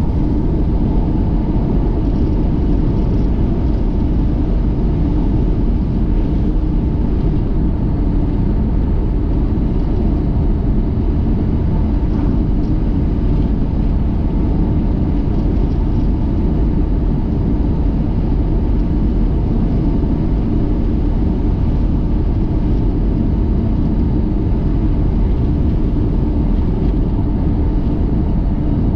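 Steady, even rumble of a vehicle on the move: road and engine noise.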